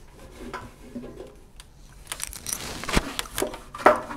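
A wipe being rubbed over the inside walls of a microwave oven, with a scratchy rubbing stretch about two seconds in and light knocks and clicks of the hand against the oven cavity, one sharp click about three seconds in.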